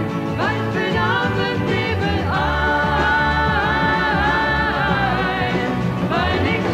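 A man and a woman singing a 1970s pop song together live, over accompaniment, with one long held note in the middle.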